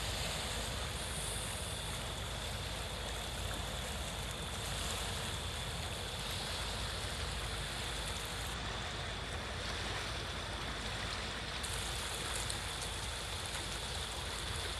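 Steady rushing wash of canal water, with a constant low rumble underneath and a faint steady high tone.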